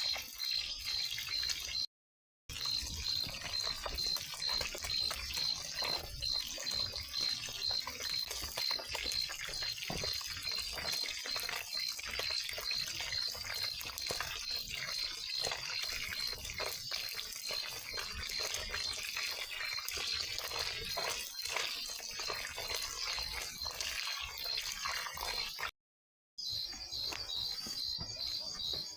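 Insects chirping in a steady, evenly pulsing chorus, about three pulses a second, over faint irregular clicks. The sound drops out briefly twice.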